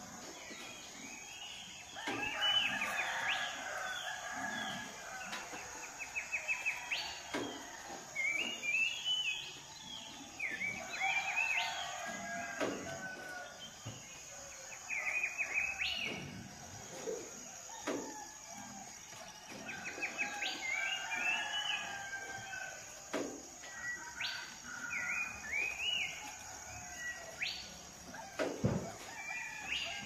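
Roosters crowing several times, long calls that come about every nine seconds, over a dense chorus of songbirds chirping and trilling.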